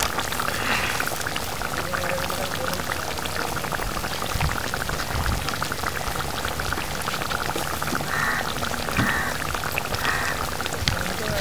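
Fish curry bubbling as it simmers in a steel pan on a gas stove: a steady, dense patter of popping bubbles.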